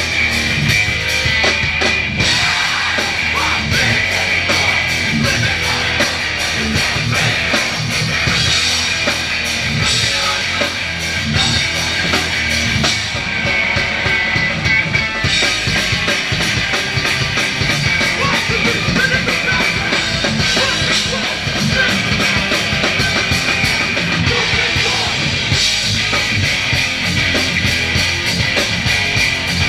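A hardcore punk band playing live and loud: distorted electric guitars over a pounding drum kit, a dense, unbroken wall of sound.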